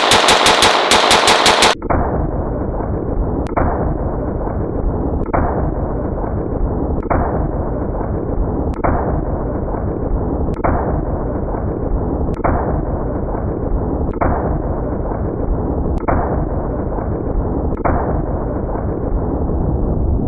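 AR-15 with a 36-inch barrel firing a rapid string of more than a dozen shots in under two seconds, cycling reliably despite the long barrel. Then comes a duller, deeper, slowed-down rendering of the gunfire, with a muffled shot about every two seconds.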